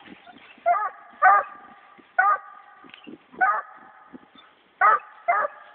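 Redbone coonhound pup barking up a tree: six pitched barks at uneven spacing, treeing for the first time.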